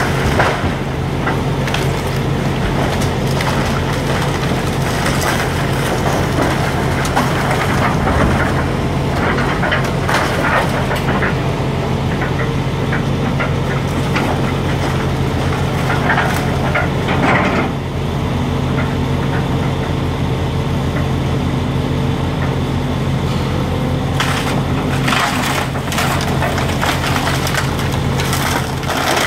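Volvo excavator's diesel engine running steadily under load while its bucket and thumb tear into a wood-framed house, with repeated cracking and crunching of splintering timber and falling debris every few seconds.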